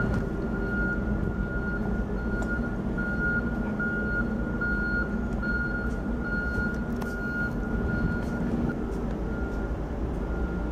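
EMD F59PH diesel locomotive's engine running with a steady low rumble. Over it a high electronic beep repeats about twice a second.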